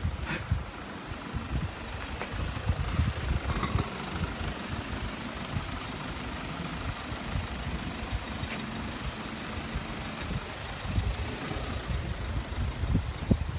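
Street traffic: a motor vehicle engine running, with a faint steady hum for a few seconds in the middle, mixed with wind buffeting the microphone as a gusty low rumble.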